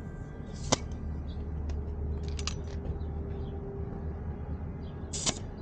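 A few sharp clicks and knocks from a hand pump being worked on a bicycle tyre, over a low steady rumble.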